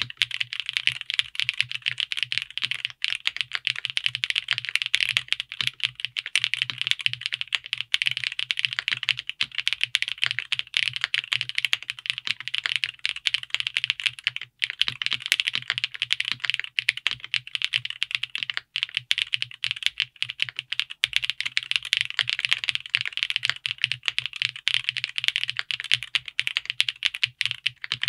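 Fast, continuous typing on an Owlab Vento 80 gasket-mount mechanical keyboard, with a few brief pauses between bursts of keystrokes.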